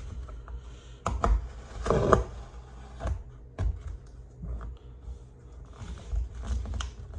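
A small knife cutting the packing tape on a cardboard shipping box, with irregular clicks, scrapes and rustles of tape and cardboard as the box is opened. A longer, louder scrape comes about two seconds in.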